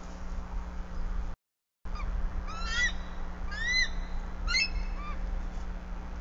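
Bald eagle giving four short, high chirping call notes, each rising and then falling, over a low steady rumble.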